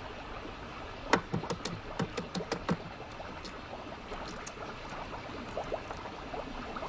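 An irregular run of light clicks and knocks, starting about a second in and lasting about two seconds, over a faint steady hiss.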